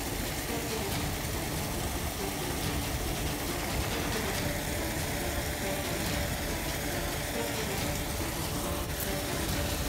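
Steady rush of water falling from a drain outlet into a canal, over a low rumble.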